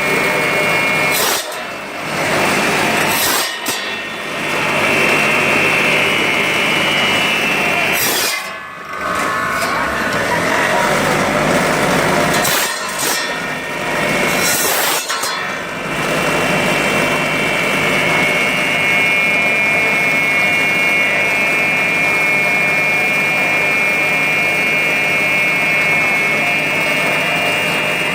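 Electric bone-cutting saw machine running with a steady high whine and a rasping noise as it cuts through animal bone, the sound dipping briefly several times in the first half between cuts.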